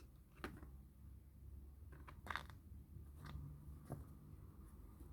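Faint scratching and clicking of a kitten moving about in its pet carrier, with one sharper, louder click about two seconds in.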